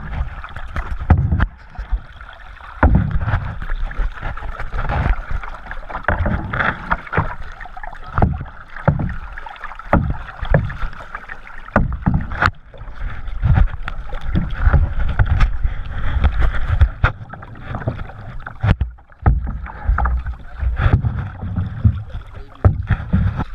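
Canoe being paddled: paddle strokes and water sounds with frequent sharp knocks against the boat and irregular low thumps.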